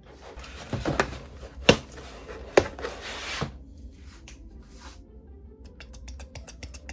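Handling noise from a doll and its packaging: a rustle with a few sharp taps over the first three seconds or so, then a run of small light clicks.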